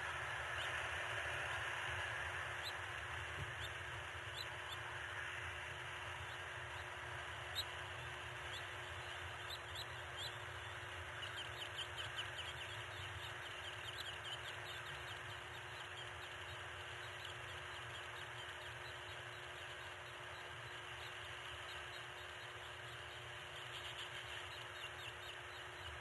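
Steady outdoor hiss picked up by a nest-camera microphone, with faint short bird chirps in quick runs, mostly in the middle and again near the end.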